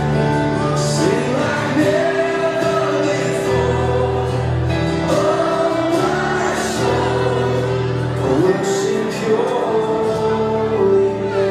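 A group of young children singing a song together to a steady instrumental accompaniment with held notes and a bass line.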